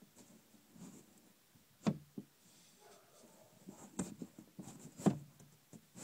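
A few soft, irregular taps and light scratching, each tap short and sharp, the strongest about two seconds in, near five seconds in and at the end.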